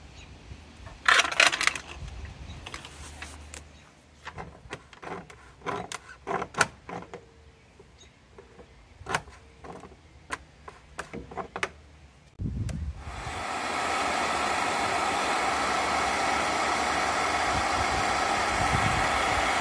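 Clicks and knocks of a wrench and hands working a PVC union fitting on pool pump plumbing. About twelve seconds in, a Sta-Rite SuperMax VS variable-speed pool pump starts and rises over a second or so to a steady, louder whir.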